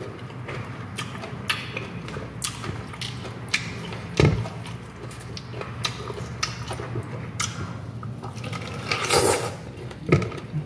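Close-up eating of juicy fresh pineapple: wet mouth smacks and chewing clicks, with a longer slurp of juice about nine seconds in. A low thump about four seconds in is the loudest sound.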